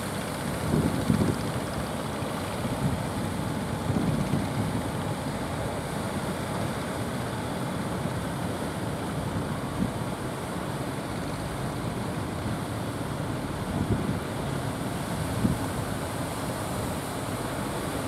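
Strong wind buffeting the microphone in uneven gusts over the steady wash of surf.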